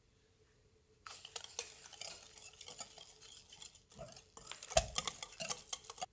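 Whisk beating a runny milk-and-egg mixture in a glass bowl: a fast, dense run of ticks and clinks against the glass. It starts about a second in, pauses briefly near the middle, and cuts off suddenly.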